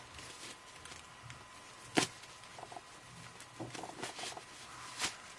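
Faint rustling of hands untying the ribbon around a bundle of fat quarter fabrics, with a sharp click about two seconds in and a few softer ticks later.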